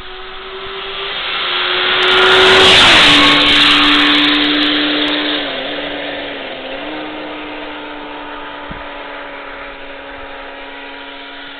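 Motorcycle passing at speed, heard from a moving vehicle: its engine note swells to a peak about three seconds in, drops in pitch as it goes by, then slowly fades away.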